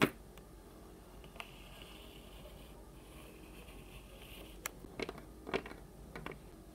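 Quiet room tone with a few light taps and clicks from small plastic toy figures being handled on a tabletop, most of them in the second half.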